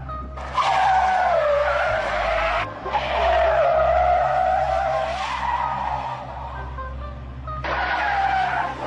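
SUV tyres squealing on pavement as the vehicle slides sideways: three long, wavering screeches, with a quieter stretch between the second and the third.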